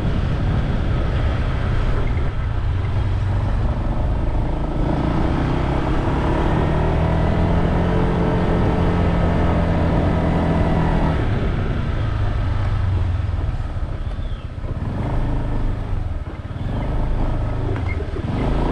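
Wind rumbling over the microphone of a moving rider. The engine hum of a motor vehicle comes in about five seconds in and stops about six seconds later.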